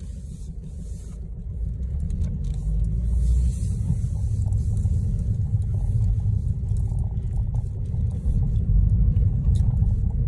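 Low rumble of a diesel car driving, engine and road noise heard from inside the cabin, growing louder over the first few seconds.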